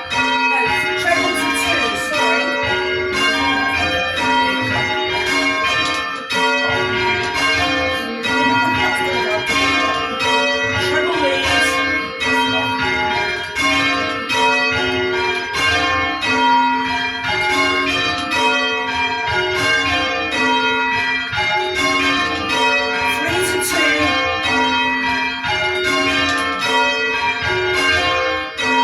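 Church bells rung in changes: a ring of bells struck one after another in an unbroken, evenly paced sequence, the strikes overlapping as each bell hums on.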